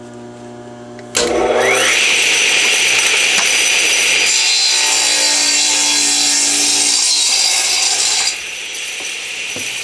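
A power saw motor starts about a second in, its pitch rising as it spins up, then the blade cuts through a thick rough oak board for about seven seconds. Near the end the sound drops as the cut finishes and the blade keeps spinning.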